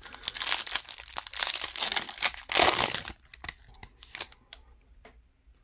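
Foil wrapper of a Donruss football card pack being torn open and crinkled in the hands, loudest about two and a half seconds in, then a few faint crinkles.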